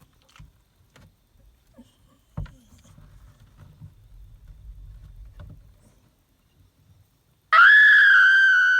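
Beagle giving one long, loud howling bay about two seconds long, its pitch steady and slightly falling. Before it come faint rustling and shuffling, with a single knock a few seconds earlier.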